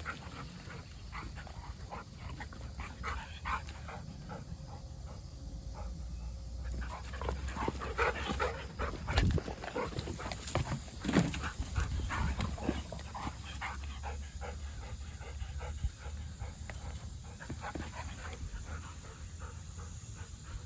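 Dogs playing together: panting, with scattered short scuffles and knocks that are busiest between about eight and twelve seconds in.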